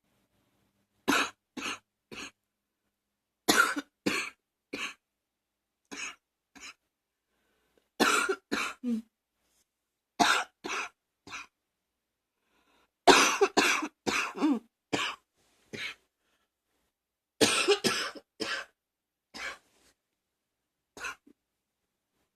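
A person coughing in repeated fits: clusters of two to six sharp coughs every few seconds, the longest and loudest fit about thirteen seconds in.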